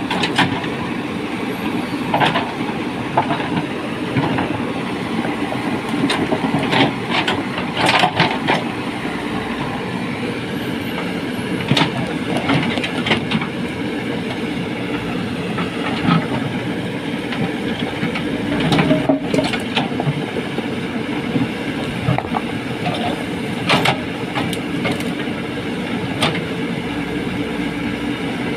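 JCB 3DX backhoe loader's diesel engine running steadily under load while the machine works earth, with scattered clanks and knocks from the working gear every few seconds.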